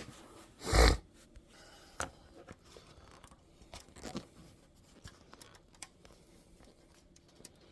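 One loud thump about a second in as the roof's sheet-metal panel is struck from inside with a block of wood to push out a dent. It is followed by scattered light clicks and rubbing from the headliner trim being handled.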